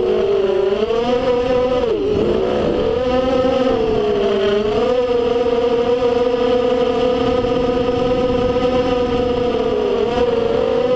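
FPV racing quadcopter's electric motors and propellers whining. The pitch falls and rises with the throttle, dipping sharply about two seconds in and again around four and a half seconds, then holding fairly steady. Heard up close through the drone's onboard camera.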